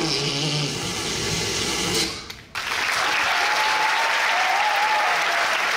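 The last of the dance music dies away, and after a brief quiet gap about two seconds in, a theatre audience breaks into steady applause with a voice cheering over it.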